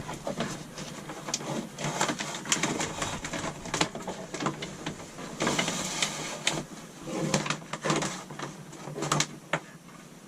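Two-conductor 14-gauge wire being pushed and pulled through a hole by hand: irregular clicks, knocks and rustling scrapes, with a longer scraping stretch about halfway through.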